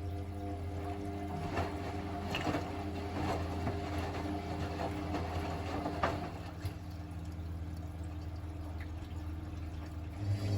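Hotpoint WML540 washing machine running mid-cycle: water sloshing and splashing in the drum over a steady low hum, with a few sharper splashes in the first half.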